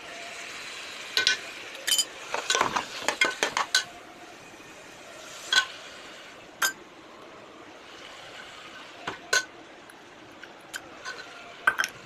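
Metal spoon stirring in a metal cooking pot, clinking and scraping against its sides: a quick run of clinks in the first few seconds, then single strikes every second or few.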